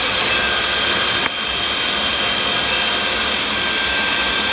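Induction heater running while it heats the nail stock: a steady, fan-like rushing noise with a thin, steady high tone over it, dipping briefly a little over a second in.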